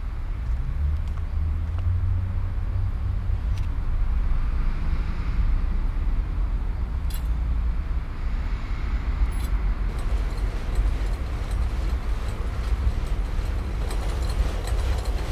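Steady low rumble of city traffic heard from a rooftop. Two brief clicks come about seven and nine seconds in.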